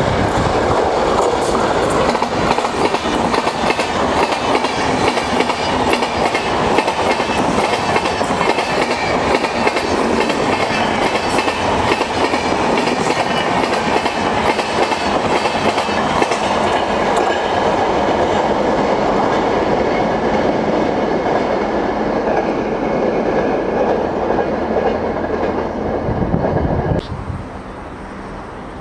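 Express passenger train passing at speed, its wheels clattering over the rail joints in a fast, steady clickety-clack. Near the end the sound cuts off suddenly, leaving a quieter low hum.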